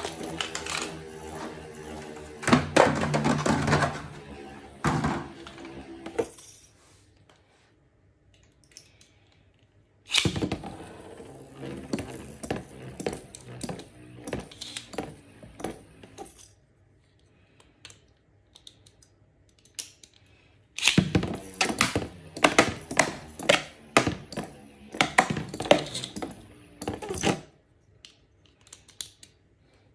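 Beyblade spinning tops clashing in a plastic Tornado Attack Stadium: rapid clacking and knocking in bouts of several seconds each, with near-quiet pauses between them.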